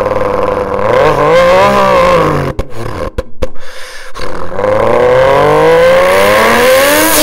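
A man's vocal imitation of a big-turbo MK4 Toyota Supra, voiced through the cardboard tube of a paper towel roll. A steady idle gives way to a rev that rises and falls about a second in, then a few sharp pops, then a long climbing rev near the end.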